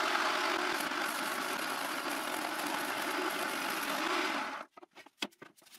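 Jigsaw mounted under a homemade saw table, running steadily while ripping a strip from a 15 mm plywood board along a fence. It stops about four and a half seconds in, followed by a few light knocks.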